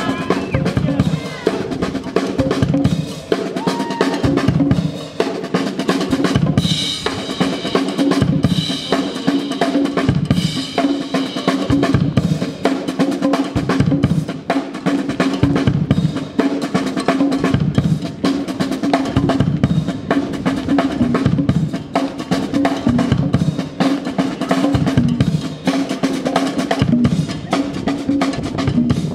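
Live drumming on a drum kit and conga drums: a steady, driving beat of regular bass-drum thumps under fast snare and hand-drum strokes.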